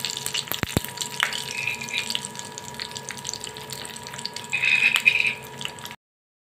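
Chopped cashews, almonds and pistachios frying in hot ghee in a small tadka pan: a steady sizzle with quick crackling pops. It swells louder for about a second near the end, then cuts off suddenly.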